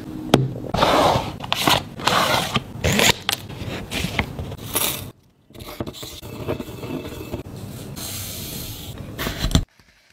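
Wooden pestle grinding dried oolong tea leaves in a mortar: irregular scraping and crunching strokes that break off briefly about five seconds in and stop suddenly near the end.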